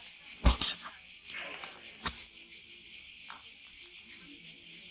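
Steady high-pitched chirring of insects, with two short knocks, about half a second in and about two seconds in, the first the louder.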